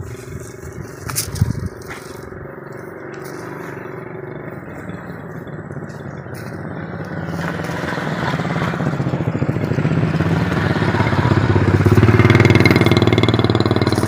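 An engine running and growing steadily louder from about halfway through, loudest near the end, with a few low knocks in the first two seconds.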